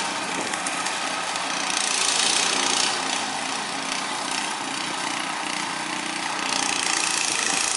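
Small long-tail boat engine of a vỏ lãi running steadily, swelling slightly about two seconds in and again near the end, with its propeller fouled by plastic bags caught in water hyacinth.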